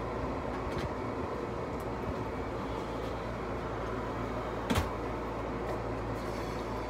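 Steady low background hum with a single sharp knock about five seconds in.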